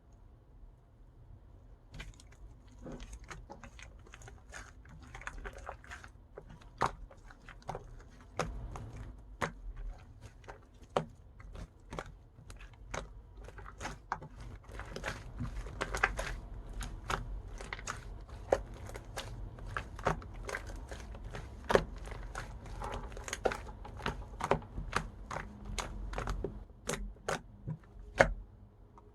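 Close handling sounds: a long, irregular run of sharp clicks and taps over a faint rustle, starting about two seconds in and stopping just before the end.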